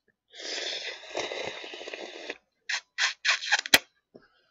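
A person slurping up bibim naengmyeon noodles: one long fluttering slurp of about two seconds, then several short slurps and smacks, and a sharp click near the end.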